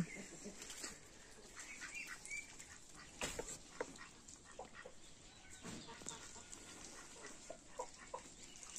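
Faint, scattered clucks and short calls from farmyard poultry, with an occasional light knock.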